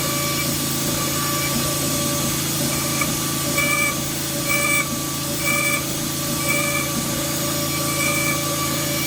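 CNC router spindle running steadily as it mills padauk wood, with a higher cutting note that comes and goes about once a second as the bit passes over the workpiece.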